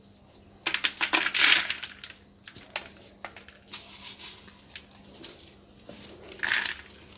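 Dry cat food kibble poured from a plastic bowl onto a feeding tray, rattling and scattering in a burst about a second in, with scattered clicks of pieces falling after it and a second pour near the end.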